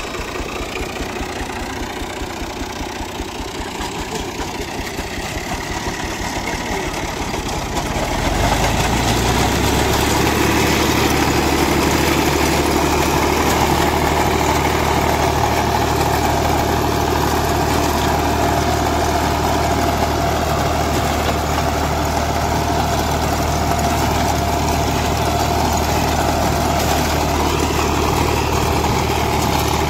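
New Holland Ghazi tractor's diesel engine running just after starting, idling with a fast, even beat. About eight seconds in it steps up to a louder, steadier hum as the front-mounted reaper binder is driven into the wheat and starts cutting.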